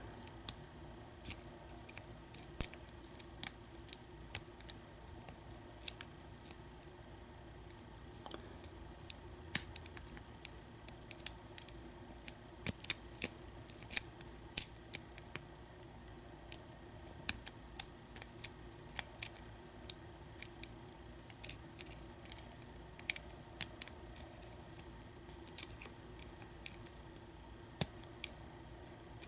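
A lock pick working the pin stack of an American 1305 padlock held under top-of-keyway tension: sharp metallic clicks and ticks at irregular intervals, sometimes several a second, with short pauses between.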